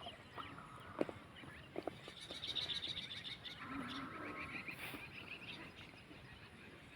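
Animal calls: rapid pulsing calls in trains, a steadier mid-pitched call, and a few sharp clicks.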